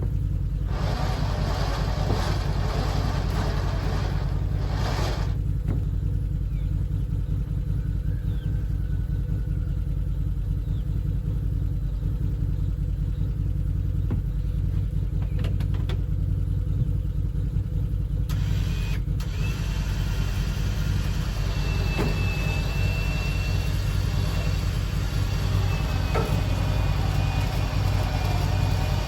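Vehicle engine idling steadily. A faint, high, steady whine joins it about two-thirds of the way through.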